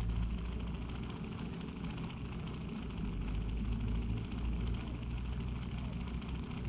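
A steady low mechanical hum with a constant high insect buzz over it.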